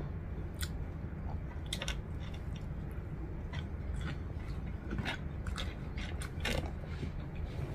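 A person biting into and chewing a mouthful of a soft, saucy homemade burger, with scattered short wet mouth clicks.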